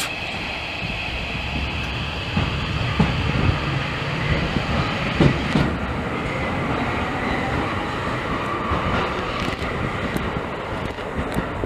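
Electric commuter train running on the rails: a steady rumble with a few knocks from the wheels and track.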